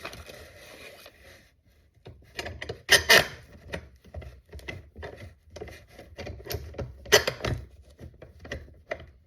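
Wood clamps being picked up and handled: irregular clicks and knocks, with two louder clacks, about three seconds in and about seven seconds in.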